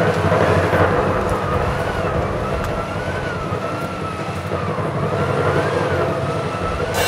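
A siren wailing, its pitch rising and falling smoothly about once a second, over a steady low hum.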